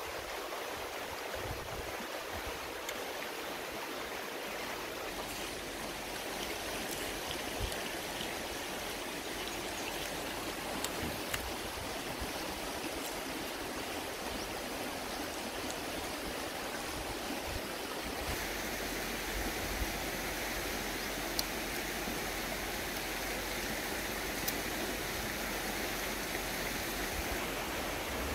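Steady rushing of flowing stream water, with a few faint clicks of a metal spoon against a plate.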